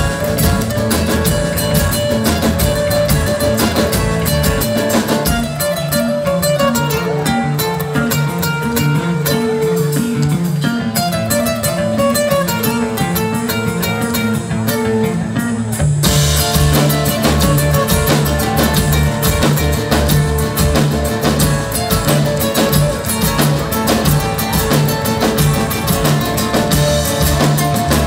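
Live band playing an instrumental passage on acoustic-electric guitar, electric bass guitar and drum kit, without singing. About five seconds in the drums drop back and a picked guitar melody carries on; about sixteen seconds in the drums and bass come back in full.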